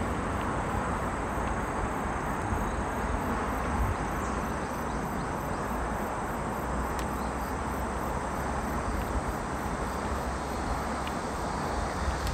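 Steady outdoor ambience: a continuous low rumble and hiss, with faint high insect chirring above it.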